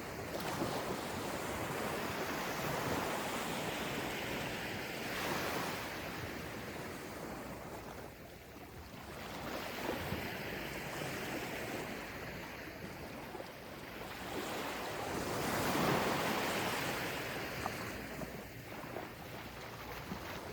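Gentle ocean waves breaking and washing onto a beach, swelling and easing in slow surges a few seconds apart, with some wind on the microphone.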